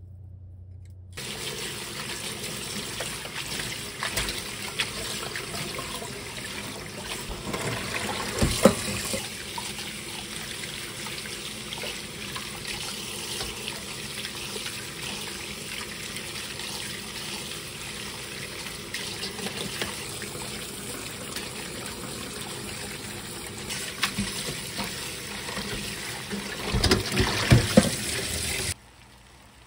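Kitchen tap running into a bowl of water in a stainless steel sink while hands swish and rinse shepherd's purse greens, with splashes. Near the end the bowl is tipped and its water pours out in louder splashes. The water starts about a second in and cuts off suddenly near the end.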